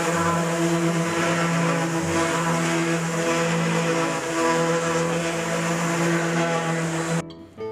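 Bosch random orbital sander running steadily on a plywood board: a constant motor hum over a wide hiss of sanding. It cuts off abruptly near the end.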